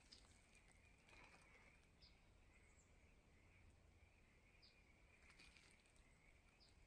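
Near silence: faint outdoor ambience with a steady high hum and four short, faint high chirps about two seconds apart.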